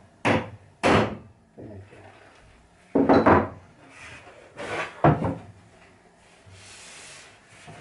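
Wooden cabinet door frame knocked and shifted about on a wooden workbench: two sharp knocks near the start, a louder cluster of thumps about three seconds in, two more around five seconds, and a faint rubbing near the end.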